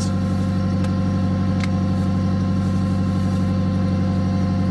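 Nissan SR20DET turbocharged four-cylinder engine idling steadily while still cold, heard from inside the pickup's cab. A single light click comes about one and a half seconds in.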